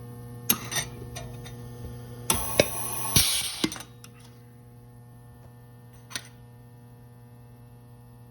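Pneumatic hot dimpling squeezer cycling through a test dimple. It starts with a couple of clicks, then runs about a second and a half of air hiss with sharp clicks as the air pressure works the dies. A steady electrical hum sounds throughout and drops in level after the hiss, and there is one more click about six seconds in.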